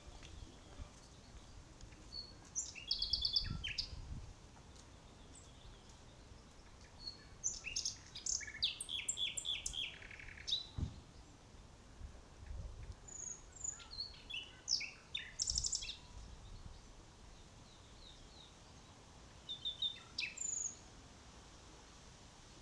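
Songbirds singing: bursts of rapid, high chirping song every few seconds, with single short calls in between.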